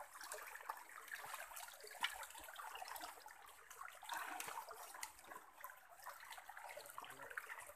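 Shallow rocky stream trickling and splashing as people wade through it, with scattered clicks and a sharper knock about two seconds in.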